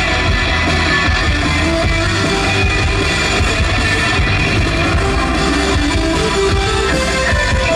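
Live rock band playing: guitar strummed over a drum kit, loud and steady.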